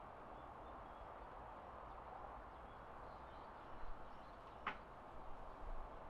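Faint outdoor evening ambience: a steady soft hiss of background noise with a low rumble, a few faint high bird chirps, and one short sharp click a little under five seconds in.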